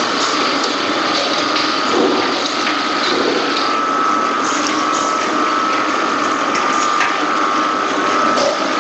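Poultry processing line running: the overhead shackle conveyor clatters, with scattered sharp clicks over a steady whine and a continuous rushing noise.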